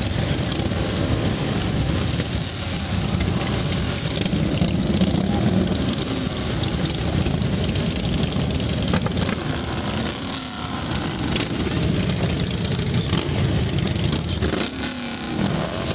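A continuous low rumble of many motorcycle engines riding past in a steady stream.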